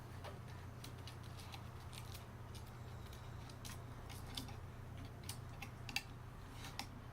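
Akai GX-266 II reel-to-reel tape deck running in play with no music yet, giving a low steady hum with scattered light irregular clicks and ticks; one click, about six seconds in, is sharper.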